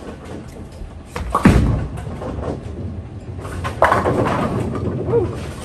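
A Storm Phaze 4 bowling ball is released onto the lane with a heavy thud about a second and a half in and rolls down the lane. It hits the pins about two and a half seconds later, and the pins clatter for over a second.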